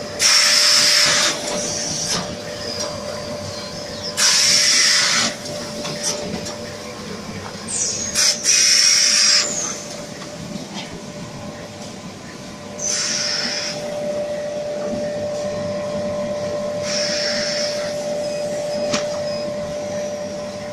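Automatic facial tissue film packing machine running: a steady hum under loud, roughly one-second bursts of hissing, five in all, about every four seconds as it works through its packing cycle.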